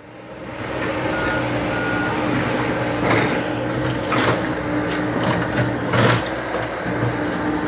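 Komatsu PC70 tracked excavator's diesel engine running steadily under work, with two short high beeps a little after the start and sharp knocks at about three, four and six seconds in.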